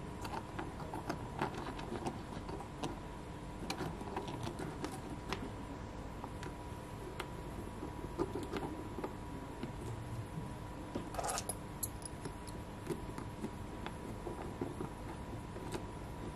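Light clicks and taps of small plastic and metal parts being handled as a coil-spring shock absorber is fitted to a 3D-printed RC car's rear axle, with a brief cluster of louder clicks about eleven seconds in. A faint steady hum runs underneath.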